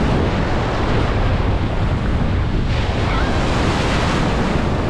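Rough storm surf breaking and foaming right at the shoreline, with wind buffeting the microphone in a low rumble. The surf swells into a louder crash a little past halfway.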